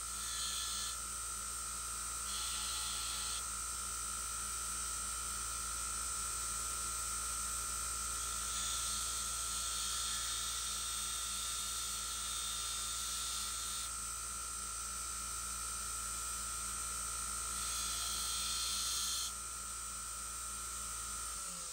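Belt grinder running with a steady whine and hum while a small piece of steel is pressed to the belt in four stretches of hissy grinding. Two are brief, in the first few seconds, one lasts about five seconds in the middle, and one comes near the end.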